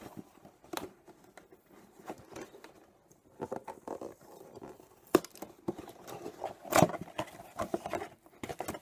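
Hands setting up small toy pyramids: irregular clicks, taps and rustles as the pieces are handled and placed, with a sharp knock about five seconds in and another near seven seconds.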